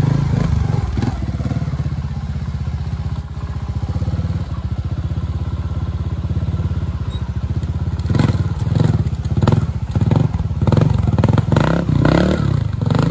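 Trials motorcycle engine running at low revs with a steady, fast pulse. From about eight seconds in, the rider gives a run of short, sharp throttle blips, roughly two a second, as the bike is worked up onto a wooden box step.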